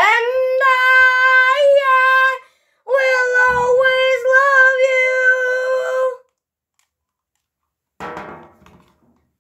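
A child's voice holding a long, high, steady note twice, the first about two seconds and the second about three, with slight wobbles in pitch; a brief rustle follows near the end.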